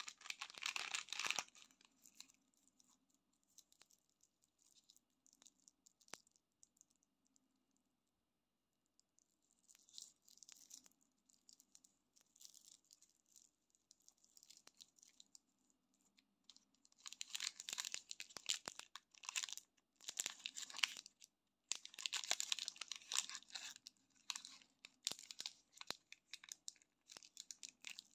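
Plastic candy wrappers crinkling and rustling in the hands, in bursts with quieter gaps. Near the end comes denser, louder crinkling and tearing as a Snickers Minis wrapper is torn open.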